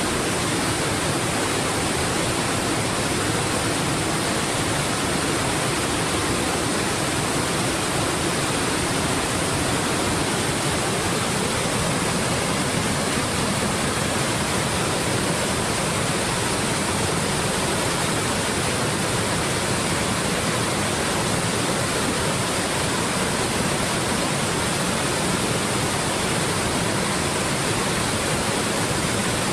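Triple Falls, a three-tiered waterfall, rushing steadily: an even, unbroken sound of falling water.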